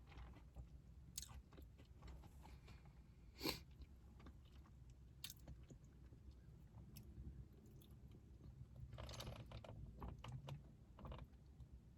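Quiet chewing of a crispy fried chicken sandwich, with scattered short crunches and mouth clicks; the sharpest crunch comes about three and a half seconds in, and a cluster comes near the end, over a low steady hum.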